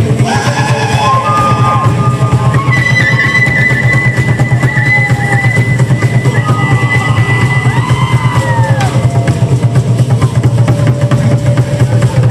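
Loud live music driven by fast, steady drumming, with higher held and gliding melodic tones over the beat.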